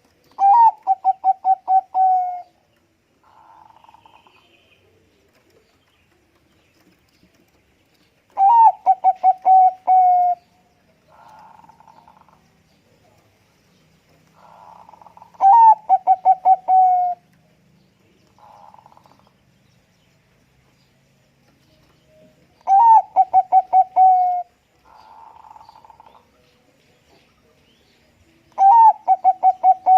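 Bangkok-strain zebra dove (perkutut) cooing: five song phrases spaced six to seven seconds apart, each a quick run of staccato coos ending in a longer rolling note. A fainter, shorter buzzy call follows each phrase.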